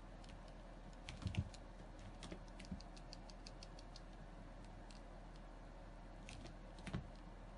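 Black cat pawing and pouncing at a laser dot on carpet tiles: light irregular clicks of claws catching the carpet and soft thumps of its paws. There is a cluster about a second in and a few more near the end, all faint.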